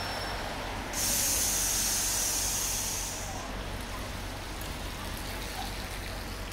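Sudden hiss of compressed air venting from a city bus's air system, starting about a second in and fading out after a couple of seconds, over steady street traffic noise.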